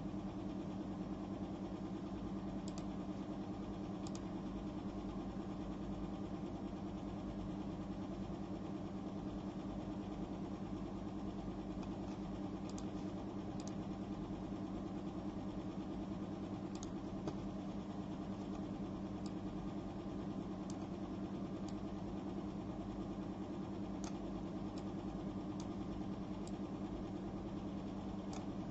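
Steady low mechanical hum, unchanging throughout, with a few faint clicks scattered through it.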